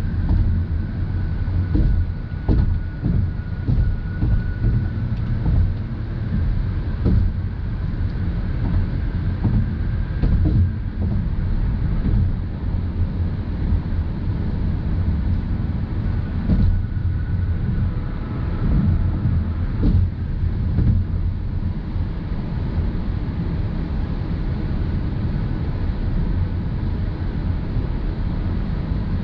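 Cabin noise of a 2020 Mazda CX-30 cruising at highway speed: a steady low road-and-tyre rumble with its engine running under it, broken by a few short light thumps.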